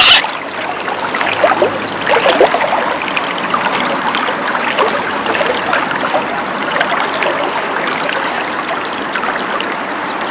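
River water running steadily, a spate river still high after a flood. A short sharp sound at the very start is the loudest thing, and a few small splashes follow in the first couple of seconds.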